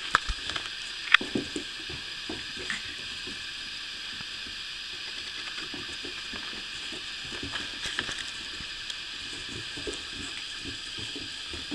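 Four-week-old puppies scuffling and wrestling on carpet: soft scattered taps and rustles, with one sharper click about a second in, over a steady hiss.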